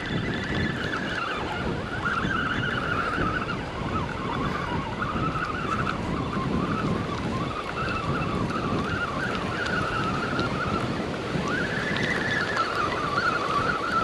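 Fishing reel being cranked to bring in a hooked fish, its gears giving a continuous wavering whine that rises briefly in pitch late on, over the hiss of wind and surf.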